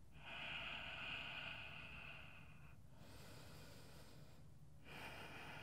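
A man's slow, deep yoga breathing, faint and close to the microphone: one long breath lasting nearly three seconds, a quieter, hissier breath after it, then another long breath starting about five seconds in.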